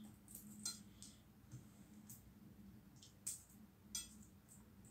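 Faint, scattered clicks and crackles of a balut's eggshell being peeled off by hand, with a few sharper ticks around three and four seconds in, over a low steady hum.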